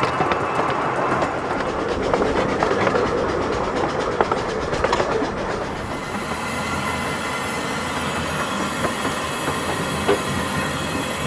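Narrow-gauge steam locomotive running along the line, its wheels clicking steadily over the track. A high steady hiss joins about halfway through.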